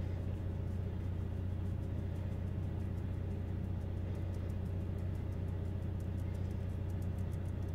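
Steady low hum of a generator engine running, with faint, evenly repeated light taps from a mesh flour sieve being knocked to sift the dry ingredients through.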